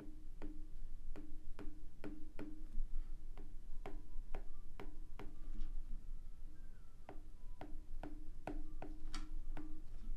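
Quick taps of a stylus on a drawing tablet as musical notes are written out, about two or three a second, with short pauses between runs.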